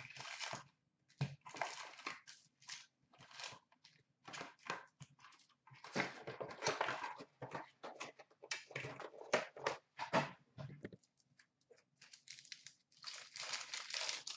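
Foil wrappers of Upper Deck Series 2 hockey card packs crinkling and tearing open, with cards handled, in irregular bursts of rustling.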